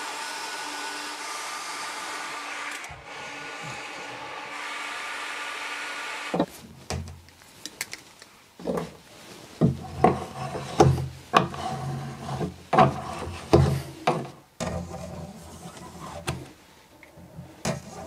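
A corded power tool runs steadily while cutting into a black polyethylene sheet, then stops about six seconds in. After that, hand tools scrape and rasp along the plastic edge in a run of irregular strokes.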